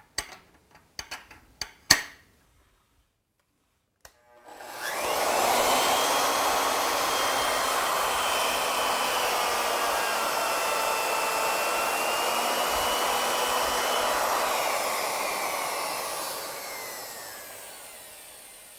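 A few clicks and knocks as the mill is indexed round, then a router with a surface planing bit starts about four seconds in and runs steadily, milling a flat onto a round wooden turning, before winding down near the end.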